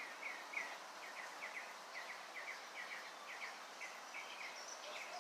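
A bird chirping over and over, faint, about three short falling chirps a second, over a steady background hiss.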